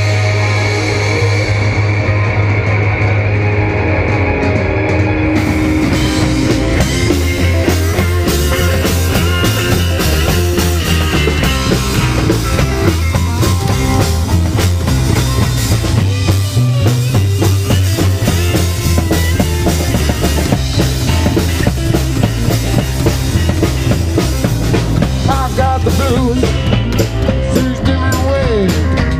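Live rockabilly band playing, with upright bass, drum kit and electric guitar. The sound changes abruptly about five and a half seconds in as it cuts to another band's performance.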